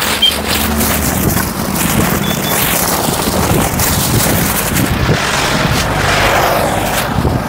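Loud wind buffeting the microphone, a rough, uneven rumble, with a vehicle running underneath.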